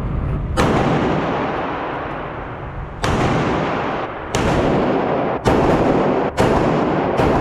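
Six gunshots at uneven intervals, each sharp crack followed by a long reverberant ring-out.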